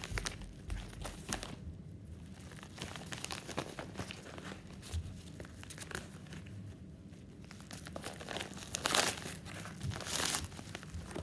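Packaging being handled and opened: crinkling, crackling rustles and tearing, with two louder tearing rustles about nine and ten seconds in.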